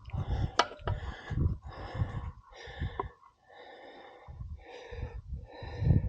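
A man breathing hard in quick, heavy puffs from the exertion of levering a bent motorcycle rim straight, with a few sharp clicks among them.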